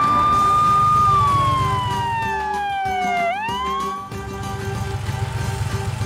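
Ambulance siren wailing: one long slow fall in pitch, then a quick rise that fades out about four seconds in, over background music with a steady beat.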